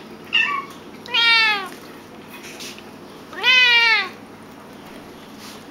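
Domestic cat meowing three times: a short meow near the start, a longer one about a second in, and a long, loud one about three and a half seconds in, each rising then falling in pitch.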